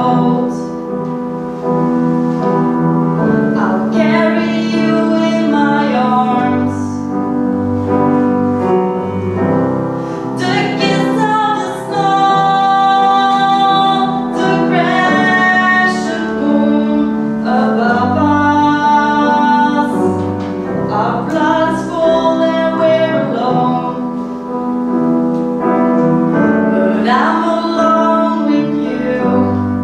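Female singing accompanied by a grand piano, a slow song with several long held notes.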